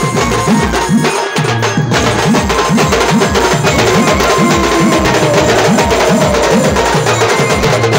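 A brass band plays lively procession music. A steady, fast drumbeat of about three strokes a second runs under a held melody.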